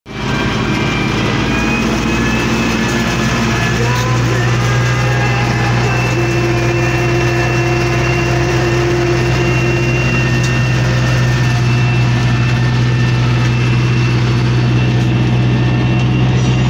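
YuMZ-8240 tractor's diesel engine running steadily under ploughing load, a loud, even drone heard from inside the cab.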